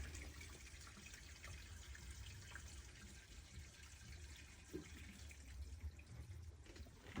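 Faint water trickling and dripping in a kitchen sink and its waste pipe, with small scattered drip ticks.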